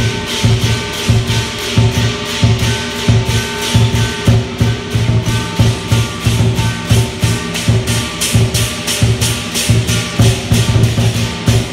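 Chinese lion dance percussion: a large drum beating about twice a second under cymbal clashes about four times a second, held ringing metal tones sounding over a steady, unbroken beat.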